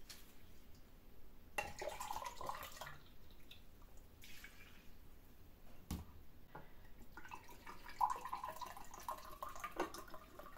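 Vinegar being poured into a large pickle jar packed with vegetables, faint liquid pouring and splashing in a few spells, the longest near the end.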